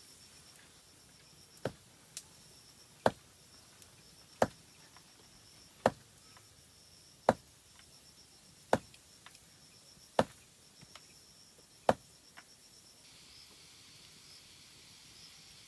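A series of sharp clicks or knocks, eight in all, evenly spaced about a second and a half apart, stopping a few seconds before the end. A faint, steady high-pitched insect drone runs underneath.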